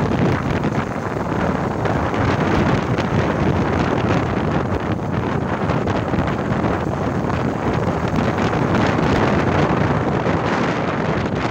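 Wind buffeting a phone's microphone as it is carried along a road in a moving vehicle: a steady, loud rush of noise with no clear engine note.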